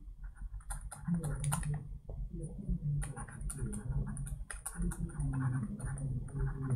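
Pen stylus tapping and clicking on a drawing tablet during handwriting: a quick, irregular run of small clicks.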